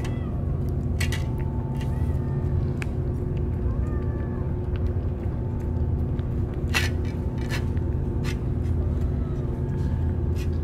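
Stray cat eating wet food from a metal dish: scattered sharp clicks of chewing and licking over a steady low rumble.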